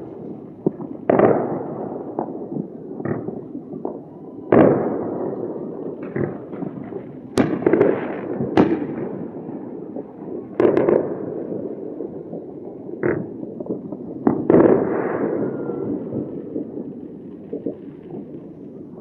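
Fireworks and firecrackers going off all around: irregular sharp bangs and cracks, each trailing off in a long rolling echo, over a steady background rumble of more distant explosions. The biggest bangs come about 4.5, 7.5, 10.5 and 14.5 seconds in.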